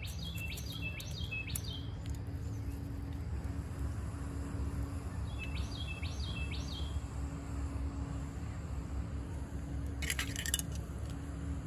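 A songbird sings two short phrases of repeated high chirping notes, about five seconds apart, over a steady low rumble. A brief cluster of sharp clicks comes near the end.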